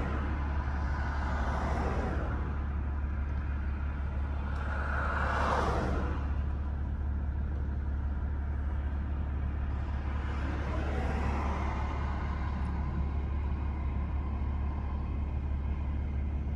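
Road traffic passing, heard from inside a parked car over a steady low rumble. Three vehicles go by: one near the start, a louder one about five seconds in, and one about eleven seconds in.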